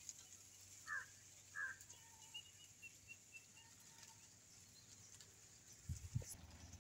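Faint bird calls over quiet countryside: two short calls about a second in, then a quick run of high chirps. A couple of low bumps come near the end.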